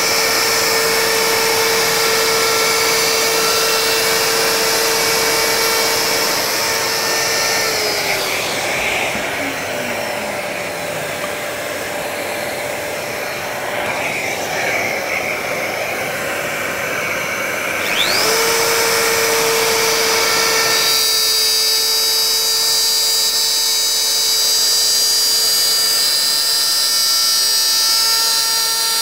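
Compact plunge router running at full speed with a steady high whine as it cuts a groove in a wooden box side. About eight seconds in the motor is switched off and winds down. About eighteen seconds in it is switched on again, spins up quickly and runs steadily once more.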